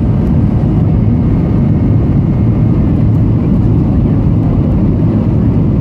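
Steady, loud, low rumble of engine and airflow noise inside the cabin of a Boeing 737-800 with CFM56 engines.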